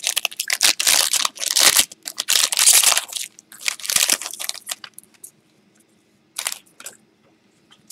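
Foil trading-card pack wrapper being torn open and crinkled, a dense crackling for about the first five seconds. After that, a few brief rustles as the cards are handled.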